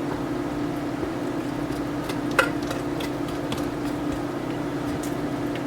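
Kitchen blender motor running steadily through a thick mashed sweet potato pudding mixture, with one sharp click about two and a half seconds in.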